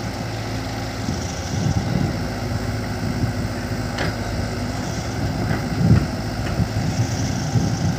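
Cat 313 excavator's diesel engine running steadily as it loads a bucket of sand into a dump truck, with a sharp clank about halfway through and a heavier thump a little later.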